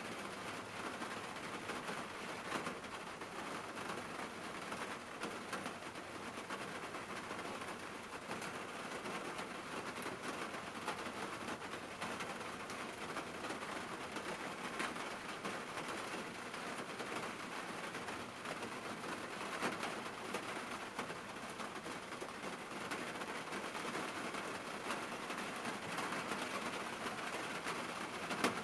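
Rain pattering steadily on a parked car's roof and windshield, heard from inside the closed cabin as an even hiss made of countless small drop taps.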